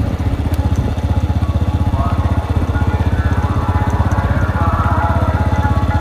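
Motorcycle engine running steadily while riding at an even pace, its exhaust pulses making a fast, regular beat.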